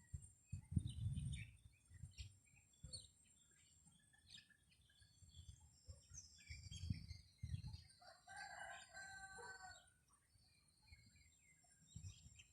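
Small birds chirping, with a rooster-like crow held for about a second and a half about eight seconds in. Gusts of wind knock on the microphone now and then.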